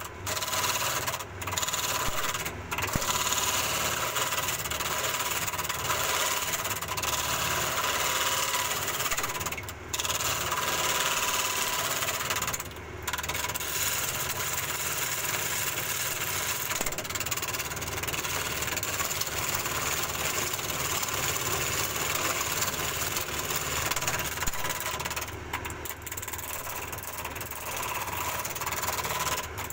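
Woodworking power tool running steadily, with a constant whine and a few brief dips in level.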